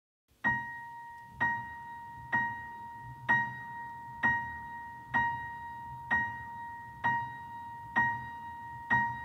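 Grand piano playing one high note over and over, about once a second, ten strikes in all, each ringing and fading before the next, with soft low notes beneath.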